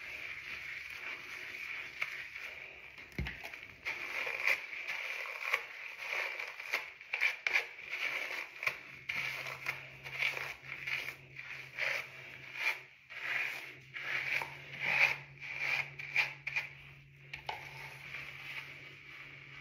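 Fingers working shampoo lather through short, kinky hair: an irregular run of wet squishing and crackling rubs. A steady low hum joins about halfway through.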